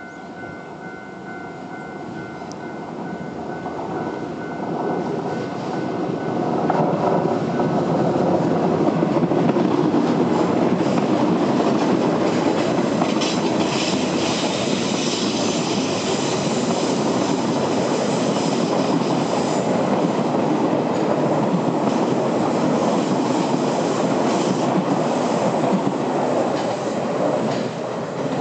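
JR 201 series electric commuter train passing close by, its wheels clattering over the rails; the sound builds over the first several seconds, stays loud as the long train goes by, and falls away near the end. A level-crossing alarm gives steady tones at first.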